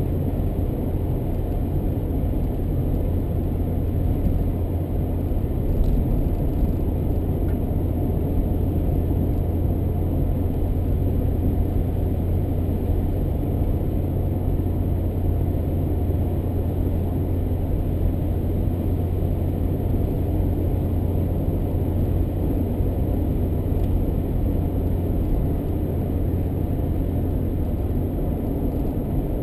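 A car driving at a steady speed: a constant low rumble of engine and tyre noise that holds steady throughout.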